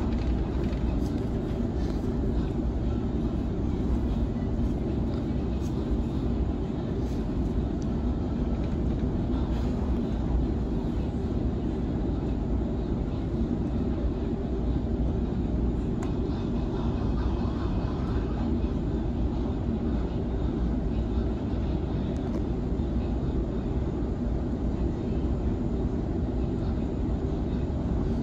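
Steady low rumble of a Sydney Trains Waratah B-set electric train running between stations, heard from inside the carriage.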